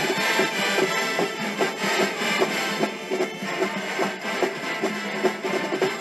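College marching band playing: sustained brass chords over a steady beat of bass and snare drums.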